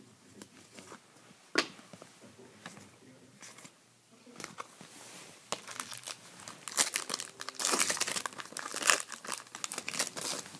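Hockey card pack wrapper being torn open and crinkled by hand: a few light rustles and clicks at first, then a few seconds of dense crinkling and tearing in the second half.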